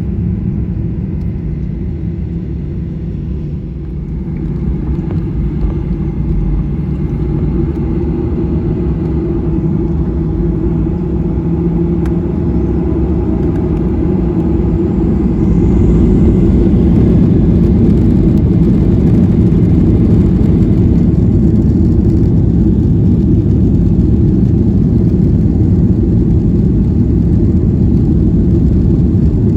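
Airliner's jet engines and rushing air heard from inside the cabin during take-off: a loud, steady low rumble that grows louder over the first half and then holds.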